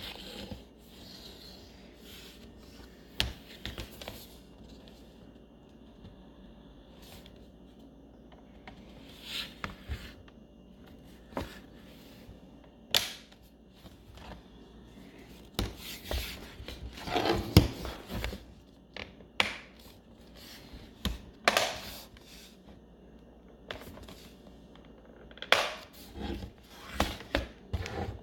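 Plastic bottom cover of an HP Pavilion x360 laptop being pressed back on by hand: scattered clicks and snaps as the clip tabs seat around the edges, with rubbing and scraping of plastic between them. The handling is busiest in the middle and again near the end.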